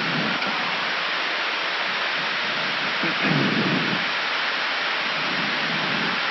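Steady rushing airflow and air-conditioning noise on the flight deck of an Airbus A319 in descent, with a faint murmur of a voice about three seconds in.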